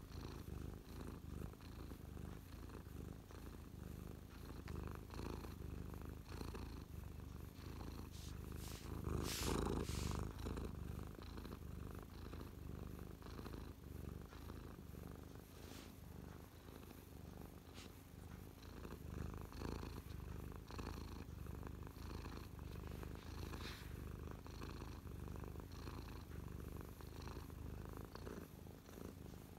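Tabby cat purring contentedly right against the microphone, a steady low rumble. About nine seconds in there is a brief louder rustle.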